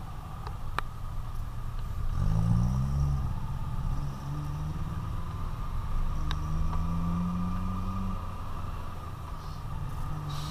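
Kawasaki Versys-X 250's parallel-twin engine running while the motorcycle moves through traffic, its pitch rising as it pulls away at about two seconds and rising again from about six to eight seconds.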